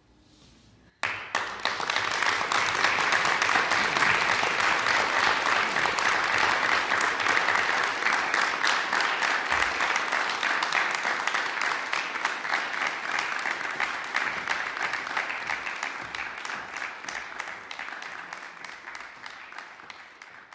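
A small concert audience applauding: after about a second of near silence the clapping starts suddenly, holds steady, and slowly dies away near the end.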